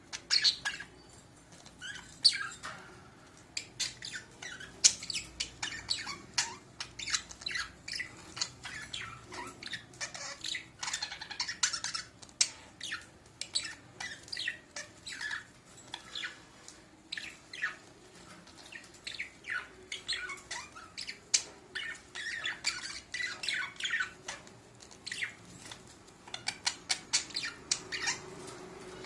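Budgerigars chattering in a steady stream of rapid short chirps and squawks, the calls of a breeding pair during courtship and mating.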